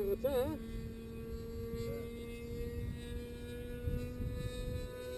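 Rossi 53 two-stroke glow engine with a tuned pipe on an RC model plane, idling with a steady hum that creeps slightly up in pitch as the model starts to taxi. A brief warbling tone sounds about a third of a second in.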